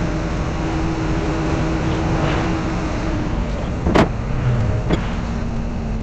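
Heavy construction machinery running with a steady engine hum whose tones shift partway through, and two sharp knocks about four and five seconds in.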